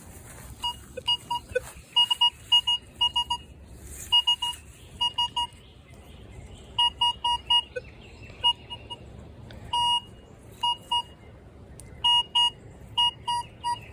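Minelab Vanquish 440 metal detector beeping as its coil sweeps back and forth over a copper-plated zinc penny on the ground: short beeps of the same tone, in clusters of two to four with gaps between sweeps, and one longer beep about ten seconds in. This is the detector's target response to the modern penny, which it reads at about 21 to 22.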